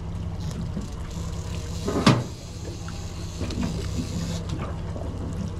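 Honda 225 outboard idling with a steady low hum while the boat sits on the spot. About two seconds in there is a short, loud knock.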